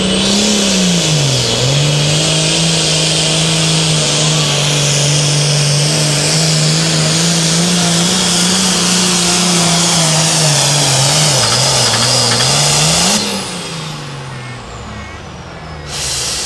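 International 1466 Hot Farm pulling tractor's turbocharged diesel engine running flat out under load while pulling the sled. Its pitch dips and recovers a couple of times. About thirteen seconds in the throttle comes off and the engine drops suddenly to a quieter run, with a falling whistle.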